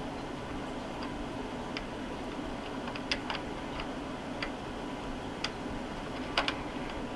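Light, scattered metallic clicks and ticks from a hex nut being worked by hand onto a freshly chased external thread, test-fitting it to see whether the thread is deep enough yet. A faint steady hum runs underneath.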